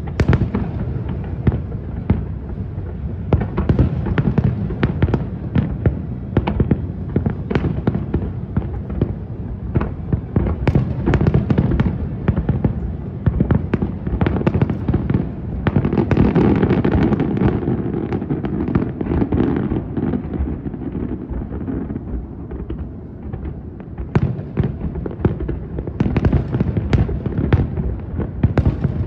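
Fireworks display: shells bursting in rapid, overlapping bangs and crackles. There is a thicker stretch of continuous booming about halfway through, and the bursts thin out briefly before picking up again near the end.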